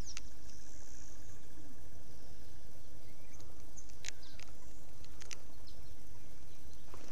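Outdoor ambience with a steady low rumble and a faint, steady high chirring. A few light clicks come about four to five seconds in as a hand takes hold of the spinning reel's handle.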